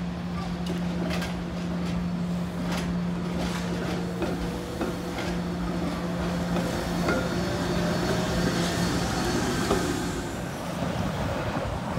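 SEPTA's 1981 Kawasaki light-rail trolley running on street track through a curve and passing close by. There is a steady low hum and scattered clicks, and the sound is loudest about eight to ten seconds in.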